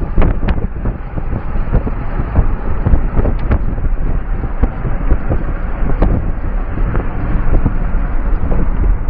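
Road noise inside the cabin of a broken-down car being towed: a heavy low rumble with frequent irregular knocks and rattles.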